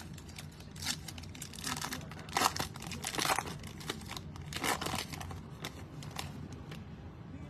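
Foil wrapper of a 2022 Illusions football card pack crinkling and tearing as it is handled and opened by hand. The sound comes in several bursts, loudest in the middle.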